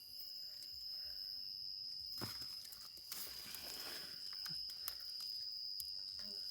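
Steady high-pitched insect chirring, like crickets, with rustling and footsteps through vegetation about two seconds in and scattered light clicks.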